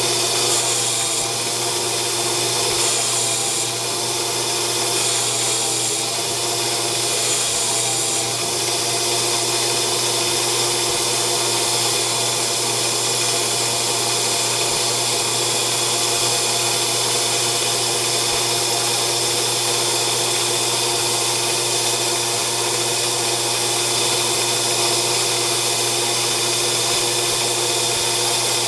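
Grizzly G0602 metal lathe under CNC control taking a heavy cut in aluminium stock: the spindle and motor run with a steady hum and cutting noise as the tool turns a fillet. It is a "monster cut" that throws thick chips, because too much of the fillet program's shallow opening passes was deleted and the first pass cuts too deep.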